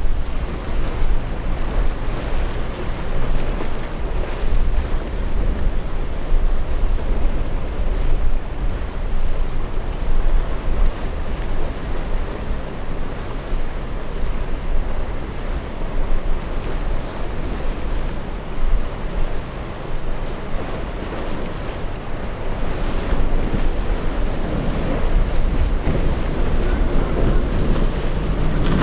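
Waves breaking and surf churning in a rough inlet, with heavy wind buffeting the microphone and a boat's outboard engine running underneath.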